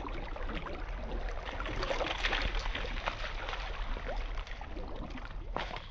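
Water splashing and sloshing at the shoreline as a hooked tailor thrashes at the surface in the shallows, irregular splashes over a steady low rumble.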